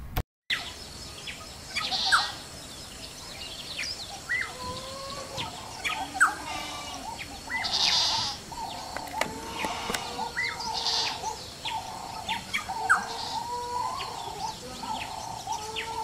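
Black-headed oriole calling: a run of short whistled notes, some sharply rising, broken by a few loud, harsh scratchy calls.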